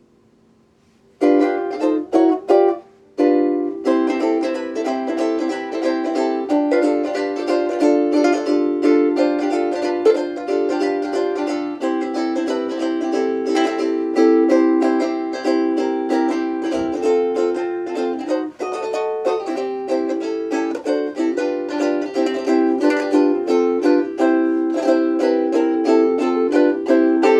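Seilen SLVS-203 vintage-style soprano ukulele with a Hawaiian koa top and back being played. About a second in come three short, stopped chords, then continuous playing, and the last chord rings on at the end.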